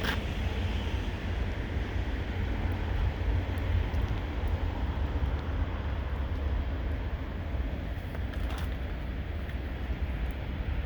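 Wind buffeting the microphone during a snowstorm: a steady low rumble under a hiss, with a brief click about eight and a half seconds in.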